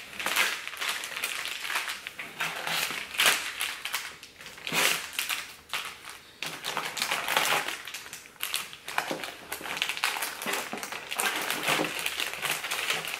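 Plastic soft-plastic bait bags crinkling and rustling in irregular surges as a stack of them is shuffled and handled.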